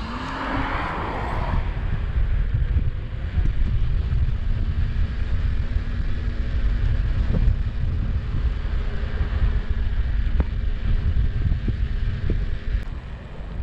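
Inokim OXO electric scooter's dual motors whining under way, the pitch rising briefly at the start and then holding steady at speed. A heavy low rumble of wind and tyre noise runs underneath.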